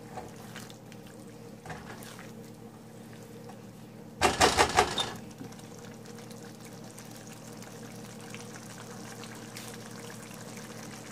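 Egg and chickpea curry simmering in a pan on the stove, a soft steady bubbling. About four seconds in, a short loud clatter of several quick knocks.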